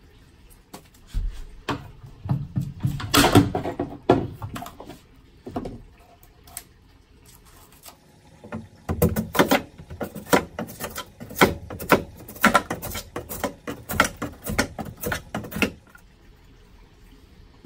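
Irregular knocking, clicking and scraping of hand tools working at a cut-out in a van's wooden floor, in two busy stretches with a quieter pause between them.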